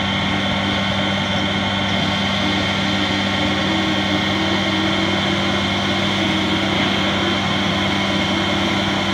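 AXYZ 4008 CNC router, with a 10 HP HSD spindle, cutting letter shapes out of a sheet, running steadily. A constant whine and cutting noise sit over a low, even hum from the machine.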